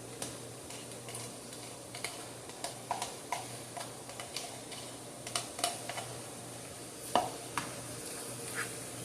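Light, irregular clinks and scrapes of a utensil against a bowl as beaten egg is poured and scraped into a ricotta mixture, over a low steady hum.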